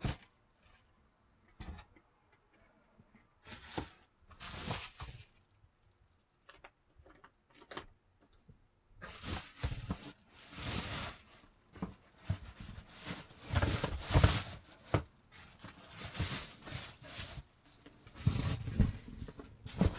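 Plastic bubble wrap rustling and crinkling as hands unpack books from a cardboard box: a few short handling noises at first, then near-continuous crinkling from about halfway through.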